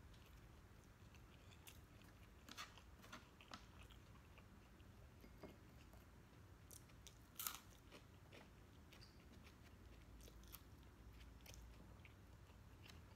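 Faint close-up chewing of sisig and rice: soft mouth clicks and small crunches, with a sharper click about seven and a half seconds in.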